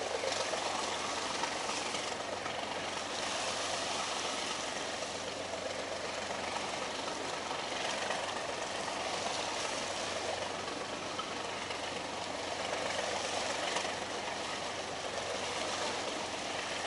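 A fishing boat's engine running steadily at idle under an even hiss.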